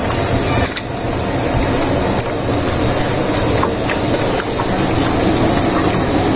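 A hand mixing chicken pieces in a thick yogurt marinade in a large steel pot, making wet squelching and sloshing, over a steady loud rushing noise.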